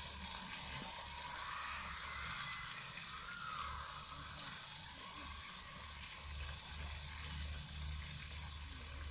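Pond fountain jet spraying and splashing back onto the water: a steady hiss of falling water, with a faint uneven low rumble underneath.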